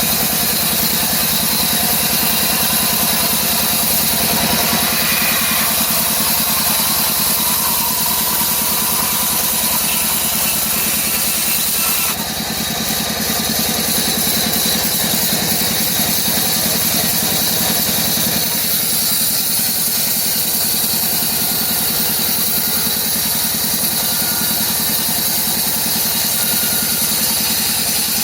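CNC router spindle running with its bit cutting wood: a steady, loud machine noise with a strong high hiss over a low hum. The sound shifts slightly and suddenly about twelve seconds in.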